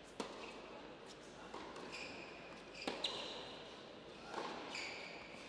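Tennis rally on an indoor hard court: a second serve struck about a quarter second in, then racket hits on the ball about every second and a half. Sneakers squeak sharply on the court between the shots.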